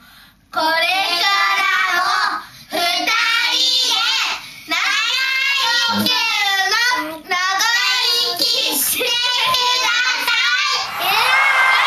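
Children singing together in high voices, a song in several phrases with short breaks between them. Near the end it turns into laughter.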